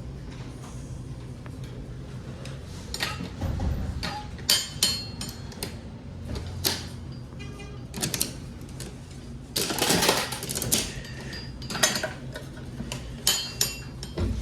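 Hard plastic and metal clicking and clattering from working a coin-operated toy capsule vending machine and its prize capsule: scattered clicks, a quick run of ticks midway, and a louder rattle about ten seconds in.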